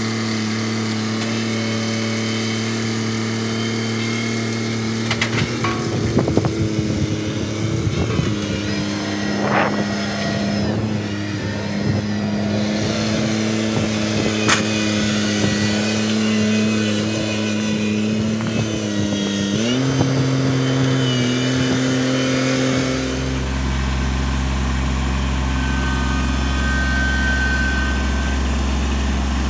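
Kubota compact tractor's diesel engine running steadily at a constant speed as it drives, with a few knocks early on. Its pitch steps up slightly about two-thirds of the way through, and a heavier low rumble joins near the end.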